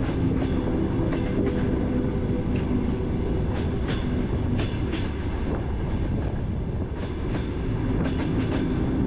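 A train running: a steady rumble and hum with scattered clicks.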